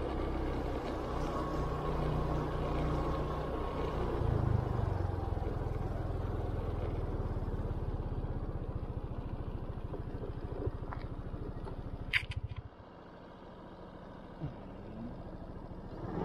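Motor scooter running along a road, its engine and road rumble steady. A sharp click comes about twelve seconds in, and then the rumble drops sharply to a much quieter idle as the scooter slows.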